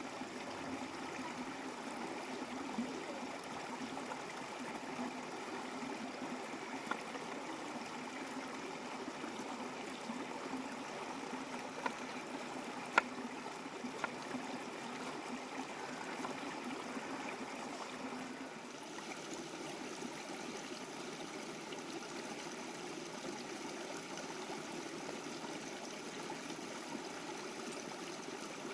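Steady rushing of a flowing stream, with a few sharp clicks, the loudest about halfway through.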